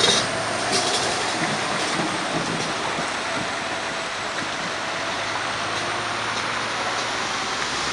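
Kenworth T800 milk tanker truck rolling past on wet pavement: a steady hiss of its tyres through water, with the truck's engine running low underneath.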